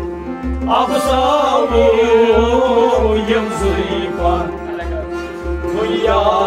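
Kashmiri Sufi song: a man singing in a wavering, ornamented line over a held instrumental drone, with a low drum beat about twice a second; the voice drops back briefly about two thirds of the way through.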